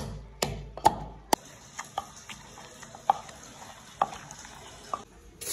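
Wooden pestle pounding green chillies into a chutney in a wooden mortar: a series of dull knocks, about two a second at first, then slowing to about one a second.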